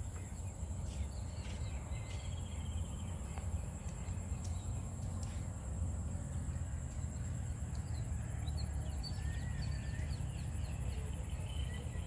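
Outdoor wetland ambience: a steady high insect drone and scattered short bird chirps over a low rumble of wind on the phone's microphone.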